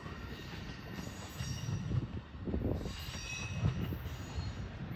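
Amtrak passenger train's last cars rolling past and away: a low rumble of wheels on rail with scattered knocks and faint high wheel squeals now and then.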